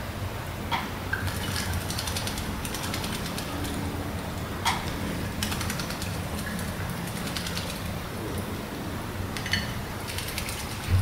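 Female Eurasian blackbird bathing in a shallow water dish: repeated bouts of splashing and wing-fluttering in the water, with a few sharp clicks, over a steady low background rumble.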